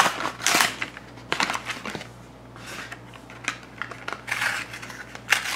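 A Hot Wheels car's plastic blister and cardboard card being pried and torn open by hand: irregular crackling and crunching, with the loudest bursts about half a second in and near the end.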